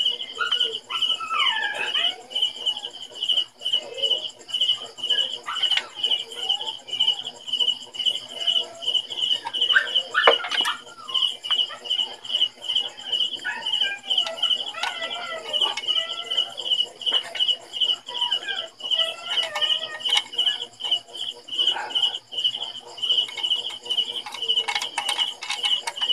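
A cricket chirps in a steady, fast, even pulse. Scattered sharp clicks and light metal rattles come from hand tools working on a GY6 scooter's engine casing.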